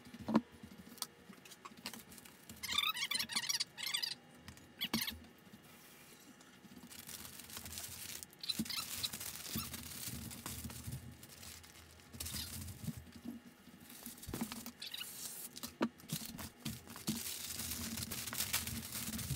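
Stiff butcher paper rustling and crinkling as it is folded and wrapped around a brisket, with hands pressing and smoothing it. A few sharp knocks on the counter, the loudest near the start.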